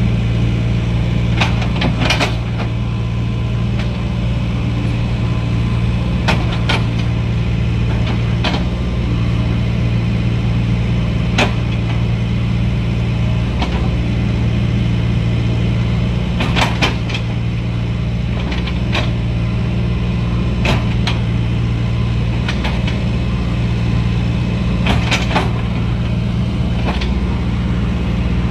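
Excavator's diesel engine running steadily, with scattered sharp clanks and knocks at irregular intervals.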